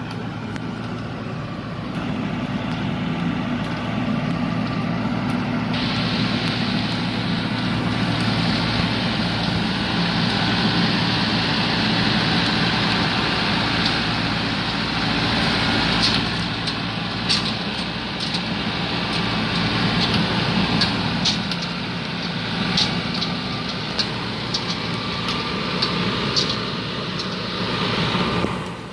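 Combine harvester's engine running steadily. A rushing hiss joins about six seconds in, and scattered sharp clicks and clanks come in the second half.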